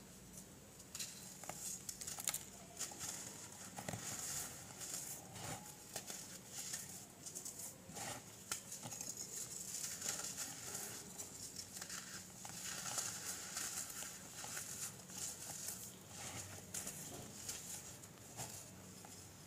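Pressed baking soda blocks being broken and crushed between fingers: a steady run of crisp crunches and crumbling crackles, with fragments pattering into loose powder.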